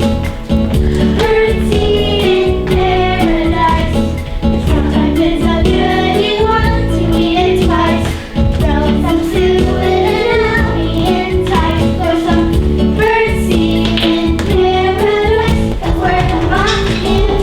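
Stage musical number: a backing track with a steady low beat and fast, warbling high melody lines, with singing over it.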